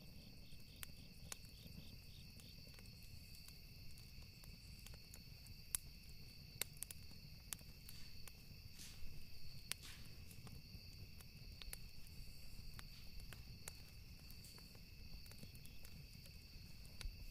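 Faint, steady chorus of night insects singing as a continuous high drone. One insect pulses about three times a second near the start, and scattered sharp clicks and crackles come over it.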